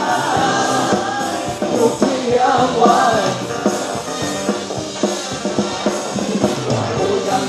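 Live pop-rock band playing a song on drum kit, electric guitars, bass and keyboard, with male voices singing.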